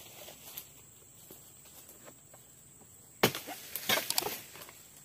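Crunching and rustling of footsteps on dry fallen palm fronds and leaf litter, starting sharply about three seconds in as a harvester moves up with a long-handled pole knife. Before that only a faint, thin, steady insect buzz.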